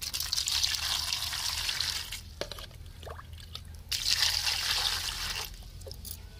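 Water poured in a stream into a steel basin holding live spiny eels, splashing and hissing, to rinse the mud off them. It pours twice: for about two seconds at the start, and again from about four seconds in, with a few small splashes between.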